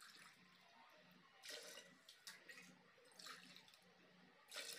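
Water poured into a steel tumbler and tipped into a pressure cooker, heard faintly as three short bursts of splashing.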